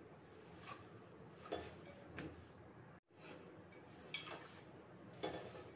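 A hand tossing flour-coated soya chunks in a steel bowl: faint scuffs and light clinks against the steel, a handful of separate strokes. The sound cuts out for an instant about halfway.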